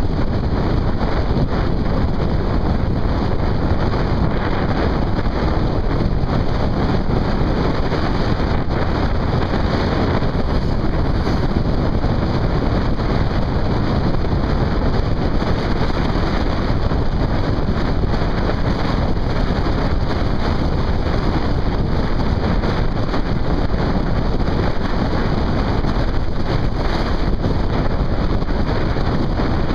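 Steady, loud wind noise buffeting the microphone of a camera on a moving vehicle, with vehicle and road noise mixed in underneath.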